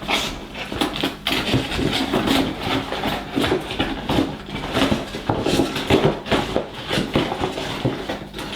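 A cardboard toy box and its packaging being opened and handled by hand: irregular rustling, scraping and short knocks and clicks.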